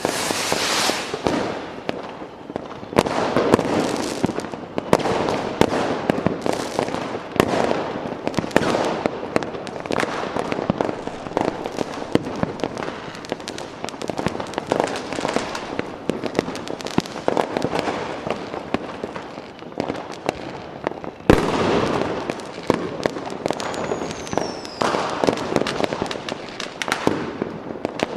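Fireworks going off in a dense, continuous barrage of bangs and crackling. About three-quarters of the way through, one sharp bang stands out as the loudest, followed shortly by a brief falling whistle.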